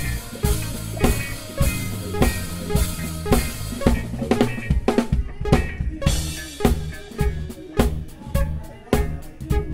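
Drum kit played live with a band, the snare and bass drum hits close and prominent over sustained low notes from the band. A bright cymbal wash carries the first half, then thins out about halfway through, leaving crisper, separate drum hits.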